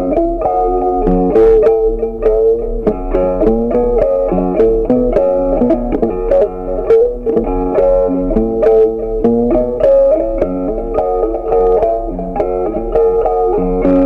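Background instrumental music: a plucked-string melody of quick, stepping notes.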